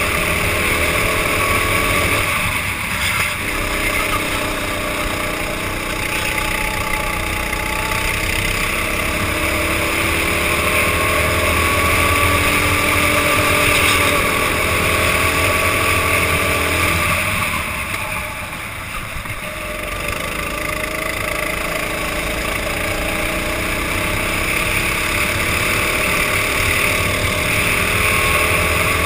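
Racing go-kart engine heard from the driver's helmet, running hard and revving up along the straights, easing off twice as the driver lifts for corners, about two seconds in and again around eighteen seconds, then pulling back up.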